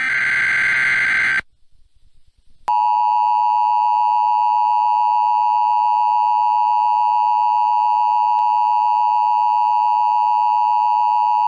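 Emergency Alert System tones: a burst of SAME header data ends about a second and a half in. After a short gap, the loud, steady two-tone EAS attention signal starts and holds.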